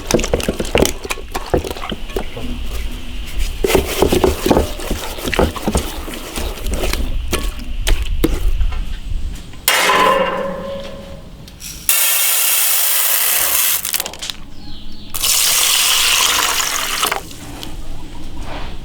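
Water splashing and pouring as a fish is rinsed and handled, with knocks and clatter in the first half, then spells of steady running water.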